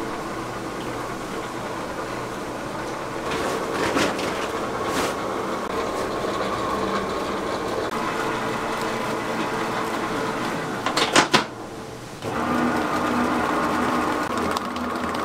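Commercial planetary stand mixer running, its wire whisk beating sponge-cake batter in a stainless steel bowl with a steady motor hum and whir. A few sharp clicks come near the end, and after them the hum settles at a lower pitch.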